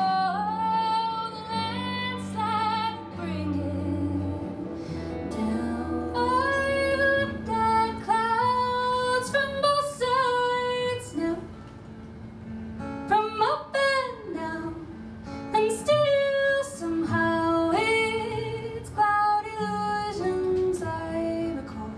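A woman singing sustained, gliding notes without clear words over acoustic guitar and band accompaniment.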